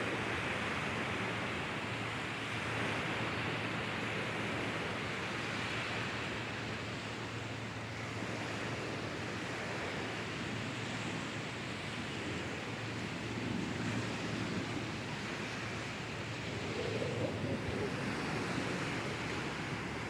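Steady wash of sea surf on a beach.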